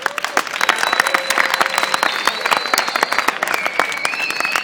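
Audience applauding as a drum solo ends, with dense clapping and a few long, shrill whistles held over it.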